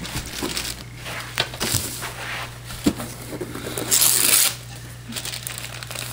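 Wrapping paper and tissue paper rustling and crinkling as a present is handled and unwrapped, with scattered small clicks and knocks and a louder burst of rustling about four seconds in.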